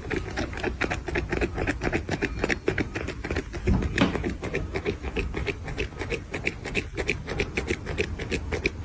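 Fast, rhythmic scratching, about eight to ten strokes a second.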